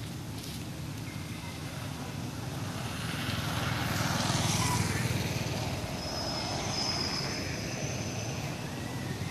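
Low engine rumble from a passing motor vehicle, swelling to its loudest about four seconds in and then easing, with a few thin high-pitched tones near the end.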